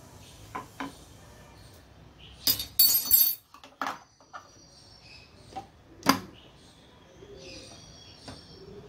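Kitchen handling sounds around a glass teapot: a few light knocks, a loud rattling clatter about two and a half seconds in, and a sharp knock about six seconds in. Faint bird chirps in the background.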